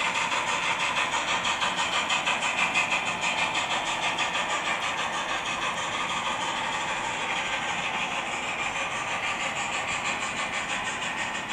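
Steam locomotive sound from the Loksound 5 decoder in an HO-scale SAR GMAM Garratt model, played through its small onboard speakers: a steady, quick rhythm of exhaust chuffs with hiss, over the running noise of the model on the track. It grows a little fainter about halfway through.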